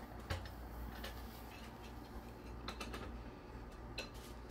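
A few scattered light clicks and taps of metal gas-stove burner heads and caps being set and wiggled into place by hand, seated firmly so they don't shift.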